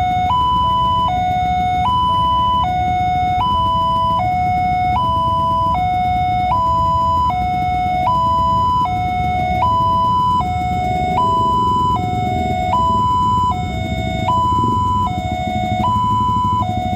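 Railway level-crossing warning alarm sounding an electronic two-tone ding-dong, alternating a higher and a lower tone about every three-quarters of a second without a break, with the low noise of waiting traffic underneath.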